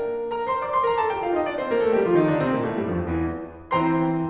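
Background piano music: a run of notes stepping downward, then a new chord struck near the end.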